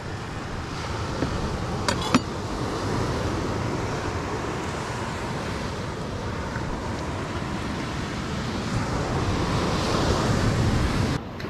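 Surf washing onto a beach with wind on the microphone: a steady rushing noise that swells a little late on, with two short clicks about two seconds in. The rushing drops away abruptly near the end.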